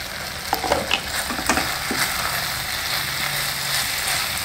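Sliced brinjals and onions sizzling as they fry in oil in a stainless steel pan, stirred with a wooden spatula. There are a few light knocks in the first two seconds.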